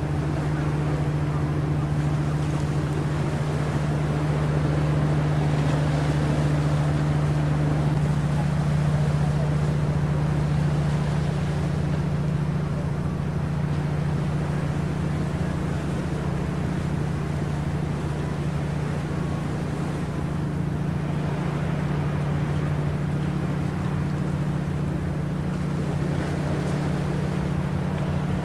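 Boat engine running steadily, a low drone under wind and water noise.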